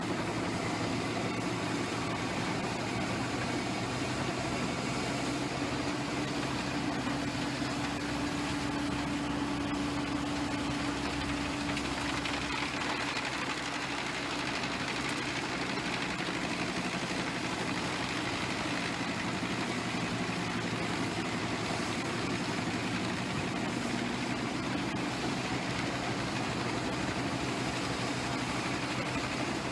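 Large wood chipper's diesel engine running steadily, with an even mechanical drone and a low hum that stands out for several seconds near the start.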